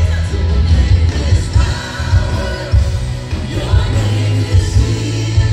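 Live worship music: a church band with singers performing a praise song, with heavy bass.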